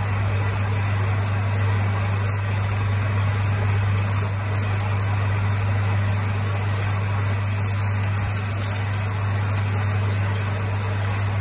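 Metal lathe taking a deep turning cut, about 5 mm per side, with a hand-reground carbide insert. A steady motor hum runs under a continuous rushing noise from the cut.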